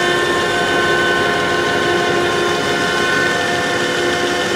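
Tata truck with a 250-horsepower diesel engine held at its 80 km/h top speed on a chassis dynamometer: a steady drone of engine, drivetrain and rollers with a steady high whine over it.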